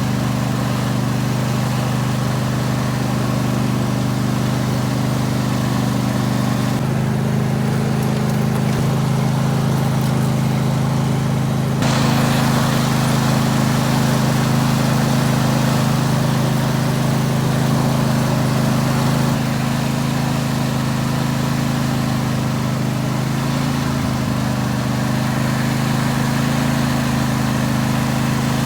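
Lawn tractor engine running steadily, its pitch shifting slightly about seven seconds in; a hiss joins about twelve seconds in.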